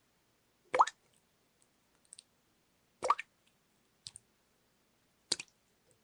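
Water dripping: three drops a little over two seconds apart, each a short plop rising in pitch, with fainter drips in between.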